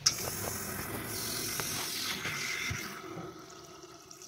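Bathroom vanity faucet opened with a click of its handle, then running a thin stream of RV antifreeze into the sink basin as the water lines are purged for winterization. The stream grows quieter near the end.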